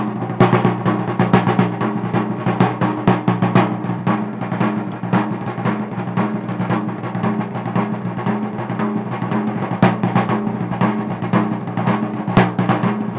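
Instrumental music intro: busy, rapid drumming over a steady low drone.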